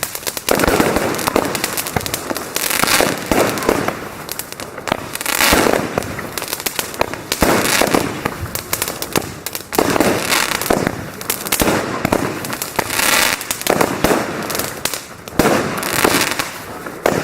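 Consumer fireworks going off in a dense, unbroken string of bangs and crackling, with louder flurries every few seconds, as from firework batteries (cakes) firing.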